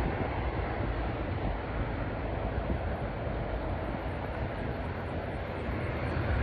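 Jet engines of an Airbus A320ceo climbing out after takeoff: a steady rumble that dips slightly in the middle and comes up a little near the end.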